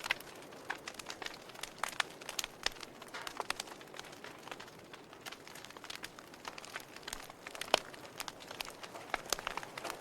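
Wood fire in a fireplace crackling, with irregular sharp pops and snaps over a soft hiss; one louder pop near the end.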